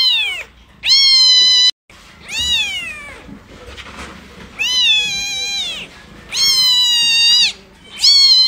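A newborn kitten mewing loudly over and over: about six high, drawn-out cries, each rising and then falling in pitch, one cut off abruptly just before the two-second mark.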